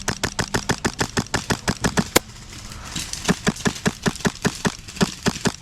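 Airsoft rifle firing on full auto: rapid, even shots at about ten a second in two long bursts, with a short break just over two seconds in that starts with one sharper crack.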